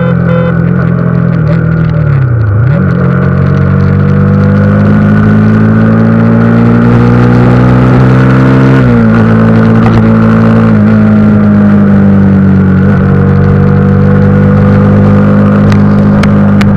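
Honda CBR sportbike engine pulling hard under the rider, its note climbing slowly through the revs. There is one quick dip and recovery about two and a half seconds in, and short steps down in pitch at about nine, eleven and thirteen seconds in, as it changes up through the gears.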